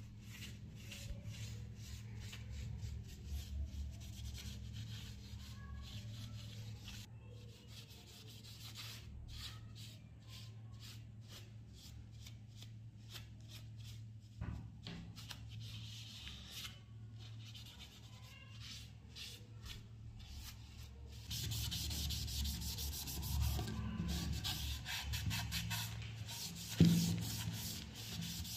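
Cloth rag rubbing over the refinished steel of an AK-47's receiver, barrel and magazine in quick repeated wiping strokes. The strokes grow louder in the last several seconds, and there is one sharp knock near the end.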